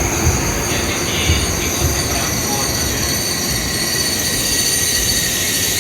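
N700S Shinkansen train running slowly into the platform, with a low rumble and a steady high-pitched whine from its wheels and drive. A few low thumps come in the first two seconds.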